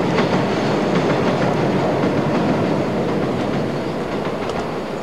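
A train passing close by, its wheels clattering over the rails; loudest at the start and slowly fading.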